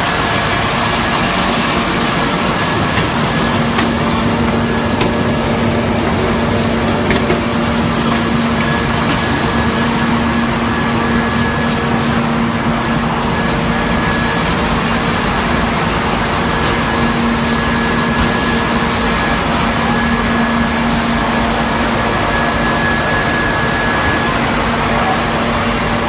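LDPE plastic film recycling washing line running: electric motors and machinery making a steady, loud noise with a constant hum and a fainter high whine that comes and goes.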